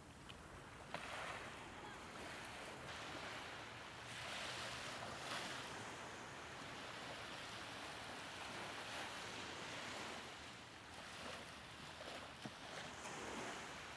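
Small waves washing up onto a sandy beach: an even, soft rushing that swells and eases every few seconds.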